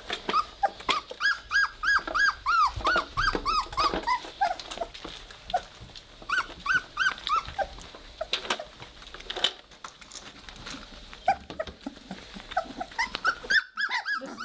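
Three-week-old Weimaraner puppies squeaking and whimpering: short, high, up-and-down calls, several a second in a quick run over the first few seconds, then in scattered bursts, with a flurry again near the end.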